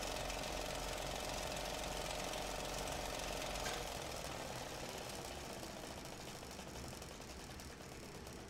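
A steady mechanical-sounding noise that slowly fades, with a short click near the middle.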